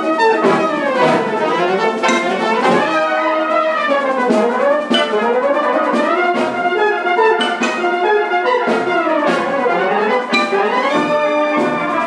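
A full brass band playing: cornets, euphoniums and tubas together, with fast rising and falling runs over sustained chords and a few sharp accents.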